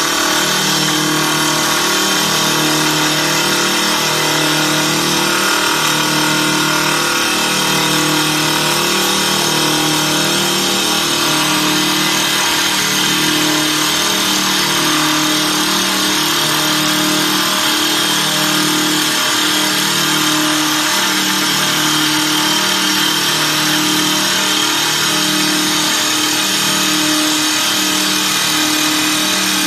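Double-spindle CNC wood lathe running, its cutters turning two wooden balusters. Steady machine noise, with a low hum that steps up and down in pitch about once a second.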